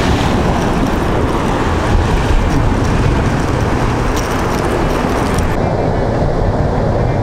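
Wind buffeting the microphone over waves breaking and washing against rocks, a loud, steady rush; the higher hiss thins out about five and a half seconds in.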